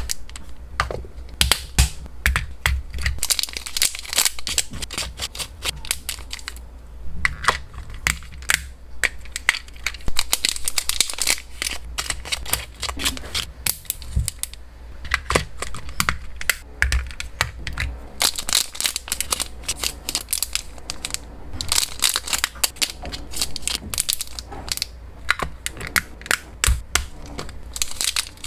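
Small clear plastic snack bags crinkling in the hands while hard, dry hamster treats (pastel fruit balls, then pumpkin stars) click and rattle against the plastic as they are put in. It is a dense, irregular run of sharp crackles and ticks.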